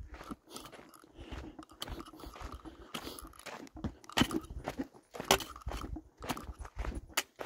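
Footsteps crunching on a gravelly dirt trail, about two a second, with the scuffing of shoes on grit.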